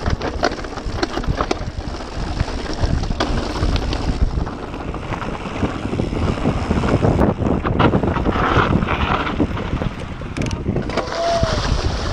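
Wind rushing over the microphone while a mountain bike rattles down a rocky dirt trail, with many sharp knocks as the tyres and frame hit stones. A brief squeak comes near the end.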